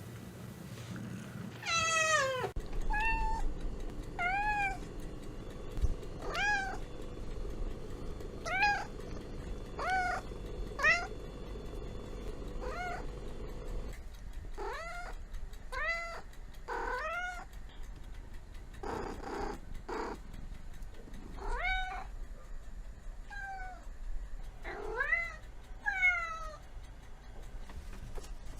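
Cat meowing over and over: many short, arching meows, one or two a second, with a longer call that falls steeply in pitch about two seconds in.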